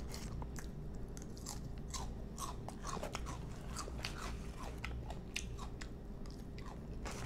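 Close-up chewing of crisp salad, lettuce and shredded carrot crunching between the teeth in an irregular run of small, quick crunches.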